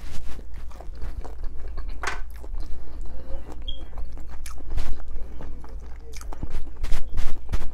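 Close-miked chewing and biting of red-coated fried chicken wings: irregular sharp crunching clicks over a steady low hum.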